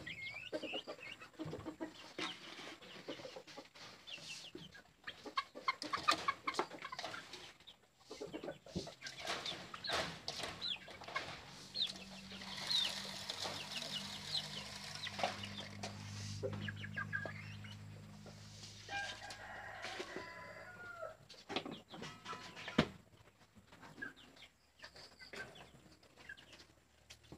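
Domestic chickens clucking in a wooden coop, with scattered knocks and rattles from handling the birds and the coop. A low hum sits under the clucking for a few seconds in the middle.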